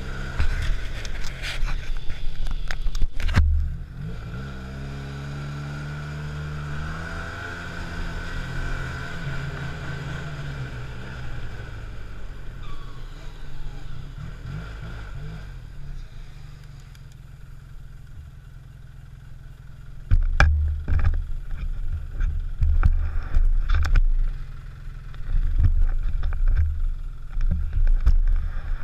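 Arctic Cat snowmobile engine running under way, heard from the rider's seat. Its pitch climbs as the sled speeds up a few seconds in, then holds steady. In the last third loud low buffeting of wind on the microphone covers it.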